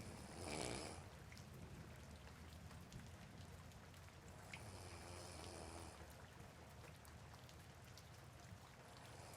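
A person snoring over steady soft rain, one breath roughly every four and a half seconds; the loudest snore comes about half a second in.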